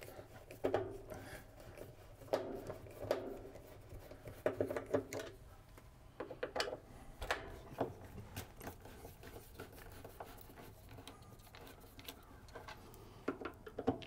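Flat-blade screwdriver prying and working at a built-in convection microwave's trim bezel: faint, scattered scrapes, creaks and small clicks at irregular moments.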